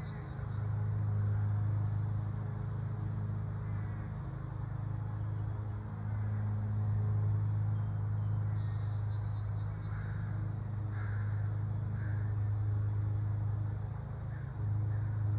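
Outdoor ambience: a steady low hum, with short rapid high chirps about nine seconds in and a few brief calls just after.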